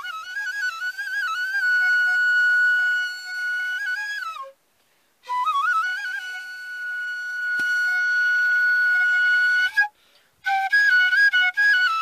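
Solo bamboo bansuri flute playing a slow melody: three phrases of quick ornamented note-steps, each settling into a long held note, with a brief breath pause between phrases about four and a half and ten seconds in.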